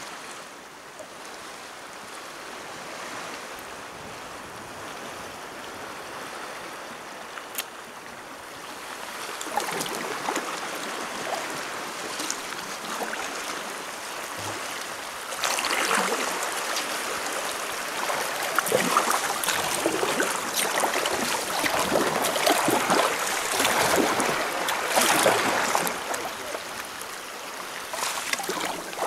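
Sea water rushing and swirling through a narrow rocky channel around a sea kayak, getting louder about ten seconds in and louder again halfway through, with irregular splashing surges.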